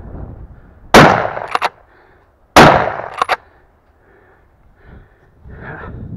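Two loud shotgun shots about a second and a half apart. Each bang fades over about half a second and is followed by two quick, sharp cracks.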